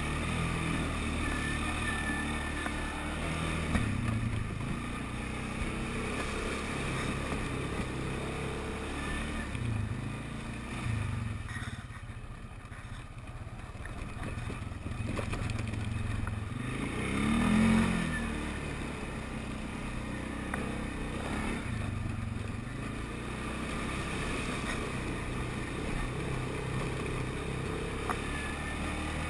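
TGB Blade 425 quad's single-cylinder four-stroke engine running as it is ridden over a dirt track, with the throttle varying. It eases off and gets quieter for a few seconds in the middle, then gives one short loud surge.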